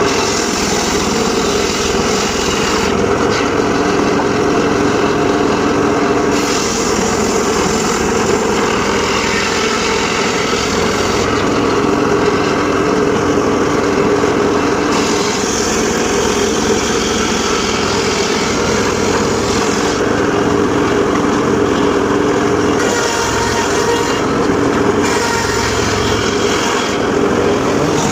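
Homemade table-mounted circular saw running steadily while its blade rips teak, the high hiss of the cut swelling for several seconds at a time and easing between passes over the steady drone of the drive.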